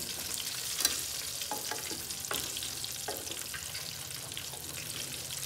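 Chicken pieces deep-frying in hot ghee, sizzling steadily, while a wire skimmer and wooden spatula lift them out of the metal pot. There is one sharp knock of the utensils about a second in and a few lighter knocks over the next two seconds.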